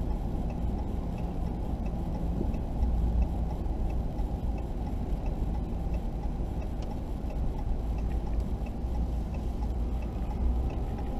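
Steady low rumble of a vehicle's engine and road noise, heard from inside the cab while driving, with faint regular ticking above it.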